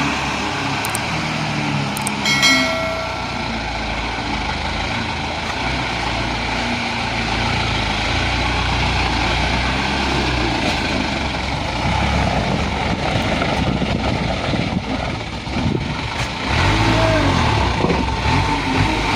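Isuzu dump truck's diesel engine running heavily, revving up and down in the last few seconds. A short high note sounds about two seconds in.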